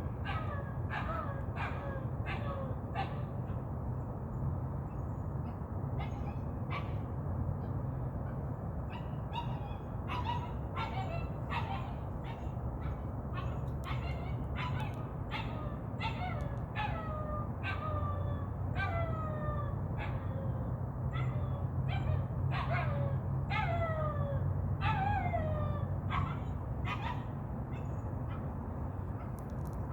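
A puppy yelping and barking over and over: short high calls that each fall in pitch, one or two a second, with a brief pause about four seconds in. A steady low hum runs underneath.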